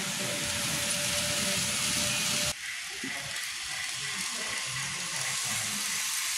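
Steady hissing background noise around running N-scale model train layouts, with a faint thin hum through it. The sound changes abruptly about two and a half seconds in.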